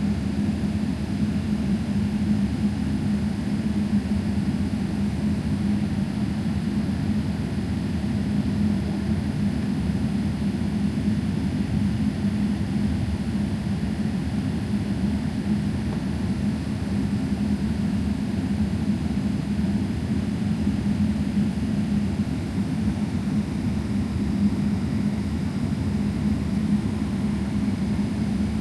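Boeing 777-300ER cabin noise: the steady drone of its GE90 jet engines heard from inside the cabin, with a constant low hum.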